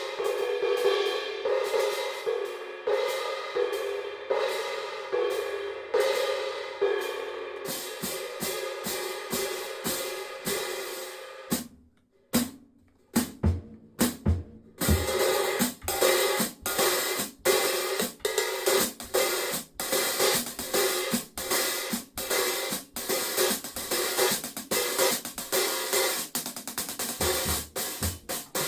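A 17-inch cymbal struck repeatedly with a stick, each hit ringing on with a strong mid tone. The strokes come about twice a second, pause near the middle where a few low drum hits sound, then resume faster, about three a second.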